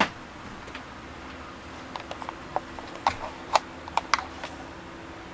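A scatter of light, sharp clicks and taps, most of them between about two and four and a half seconds in, over a steady low hum.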